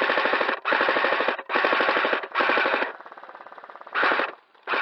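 Airsoft rifle firing full-auto bursts, close and loud: five bursts of rapid clicking, about half a second each. A fainter stretch of rapid firing runs for about a second between the fourth and fifth bursts.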